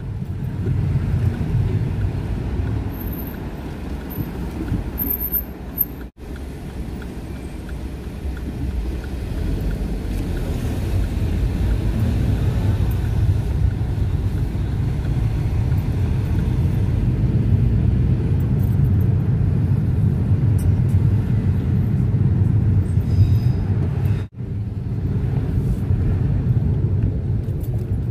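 Car cabin noise while driving: a steady low rumble of engine and tyres heard from inside the car. It drops out for an instant twice, about six seconds in and again near the end.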